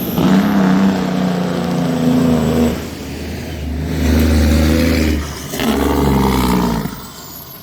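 Big truck's diesel engine labouring close by as it pulls away, its engine note rising in three pulls separated by two short dips as it changes gear, then fading near the end.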